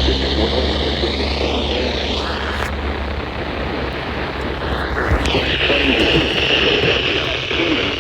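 Steady rumble and hiss inside a moving car's cabin, with the hiss growing louder about five seconds in.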